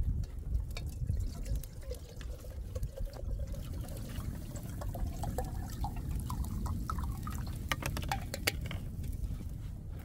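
Water poured from a plastic jug into a small metal kettle, the pitch of the pour rising as the kettle fills. A few sharp clicks come about eight seconds in.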